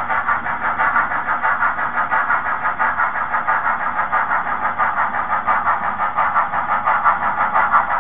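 HOn3 model steam locomotive running with a freight train, giving a steady, rapid rhythmic chuffing beat.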